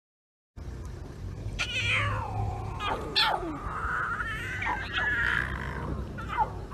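Lion cubs mewing after a moment of silence: a series of high calls that slide down in pitch, with a longer wavering call about halfway, over a low steady rumble.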